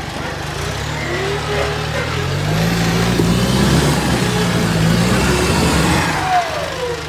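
Modified off-road 4x4 competition vehicle's engine revving under load as it climbs a steep dirt bank. The revs rise about two seconds in, are held, then drop back near the end as it reaches level ground.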